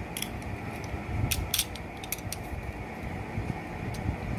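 A few sharp, irregular clicks and taps from a plastic box cutter being handled and set against the foil seal of a plastic capsule bottle, over a steady background noise.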